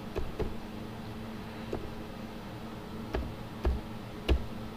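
Computer keyboard keystrokes: about six separate key clicks as an IP address is typed in, irregularly spaced, the last few louder, over a steady low hum.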